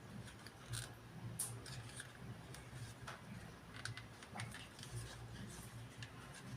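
Faint, scattered clicks and light knocks as small washing-machine parts are handled and pressed into place by hand, over a low steady hum.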